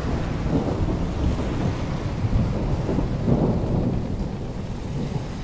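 Rolling thunder rumbling low over a steady wash of rain, swelling a little around the middle and easing off near the end.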